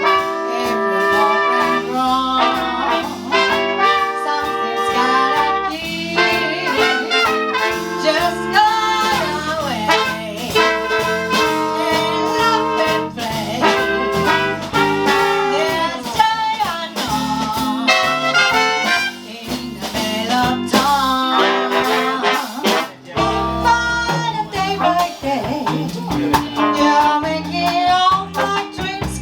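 Dixieland jazz band playing an instrumental passage: several horns playing melody lines together over a steady bass beat.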